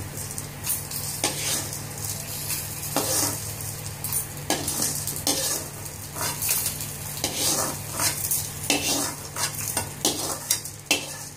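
Metal spoon scraping across a metal kadai and clinking as it scoops fried urad dal into a steel mixer jar. The scrapes and clinks come irregularly, every half second to a second, over a steady low hum.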